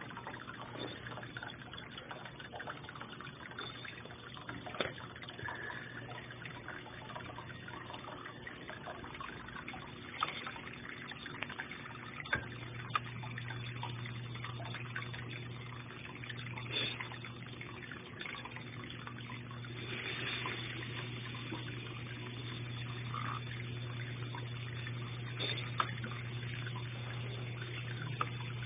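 Water running into the tub of a Consul Ideale 4 kg washing machine as it fills for the rinse. Under it is a steady low hum that grows louder about twelve seconds in, with a few scattered clicks and splashes.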